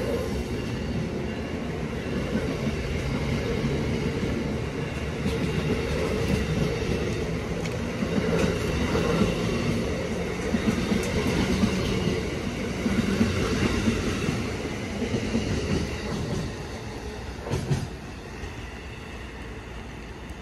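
Amtrak passenger train passing close by at speed: steady rumble of steel wheels on rail with a rapid clatter of ticks. A sharp clack comes near the end, just before the sound drops off as the last car goes by and recedes.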